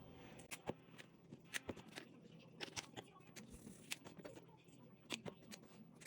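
A string of irregular light clicks and taps, a dozen or so, from things being handled while cooking.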